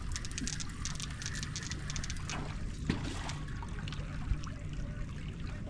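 Water splashing and trickling at the side of a boat as a hooked fish is reeled up to the surface, over a low steady engine hum.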